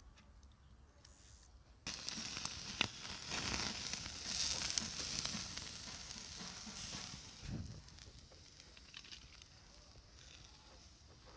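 Chicken hearts sizzling in a wire grill basket over wood embers, a steady hiss with scattered crackling pops. It starts suddenly about two seconds in, with one sharp pop about a second later, stays strong for several seconds and then dies down.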